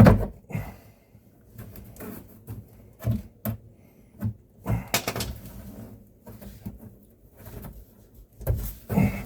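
Irregular knocks, clicks and scrapes of hand work inside a wooden sink cabinet, a flathead screwdriver prying at old staples, with a sharp knock at the start.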